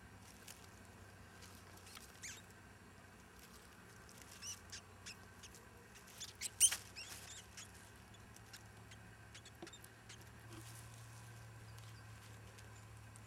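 Mouse, caught by a cat, squeaking: a few short, high squeaks, the loudest cluster about six and a half seconds in.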